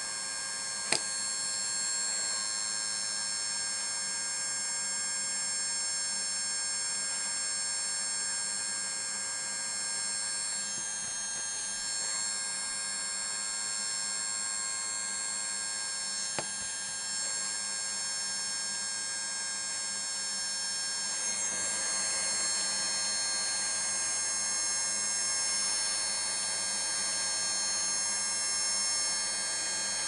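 Hot air rework gun blowing steadily, an even whine with several steady high tones, heating the device's frame to soften the screen adhesive. Two sharp clicks, about a second in and about sixteen seconds in.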